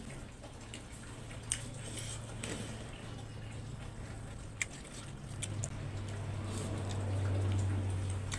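Close-up wet eating sounds: chewing and mouth smacks with a few sharp clicks, as fingers squish rice and pork curry together. A steady low hum runs underneath and grows louder in the last few seconds.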